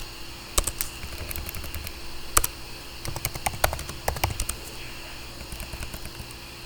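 Typing on a computer keyboard: irregular key clicks in short runs, over a steady faint hum.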